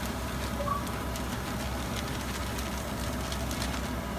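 Plastic bag of mini marshmallows shaken out into a pot, with faint crinkling over a steady hiss and low hum.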